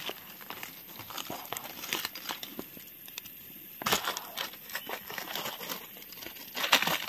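Dry forest leaf litter rustling and crackling as it is disturbed, in irregular crinkles with louder rustles about four seconds in and again near the end.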